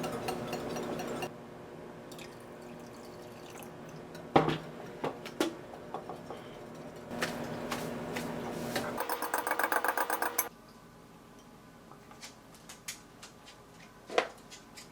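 Kitchen preparation sounds with the plastic egg steamer and utensils. A steady hum cuts off about a second in, then comes a sharp knock and a few clicks. Near the middle there is a run of rapid, even ticking with liquid sounds, and scattered light clicks follow.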